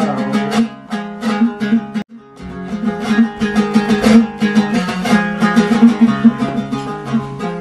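Kazakh dombra strummed in a fast, driving rhythm, an instrumental passage with no voice. The playing cuts out briefly about two seconds in, then resumes.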